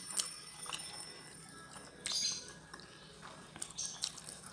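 Close-miked mouth sounds of a person chewing jengkol (dogfruit) in spicy balado sauce with rice: soft wet smacks and small clicks, with a brief louder smack about two seconds in.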